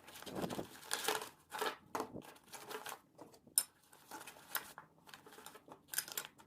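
Irregular rustling and crinkling handling noises, with a single sharp click about three and a half seconds in.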